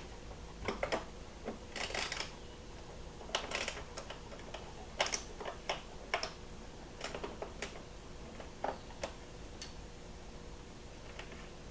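Irregular light clicks and clinks of hand tools and small metal parts, such as bolts and washers, being handled, in scattered groups with short pauses.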